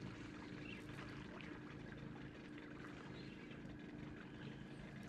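Faint outdoor background: a steady low hum with a few scattered faint ticks.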